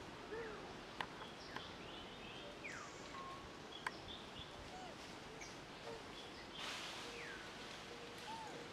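Faint outdoor forest ambience: a steady hiss with scattered short chirps and a couple of falling whistled calls, plus a few sharp clicks.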